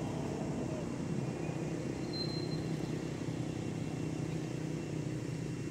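Steady low mechanical drone of a distant engine, with a brief high whistle-like tone about two seconds in.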